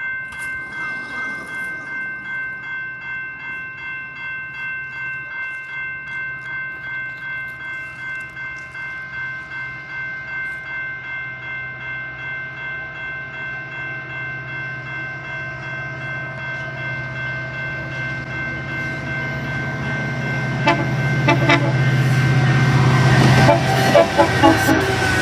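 Locomotive air horn holding one long multi-note chord with a slight regular waver as a train approaches. The low rumble underneath grows louder, and in the last few seconds wheel clatter joins in and the horn's pitch dips slightly as the train draws level.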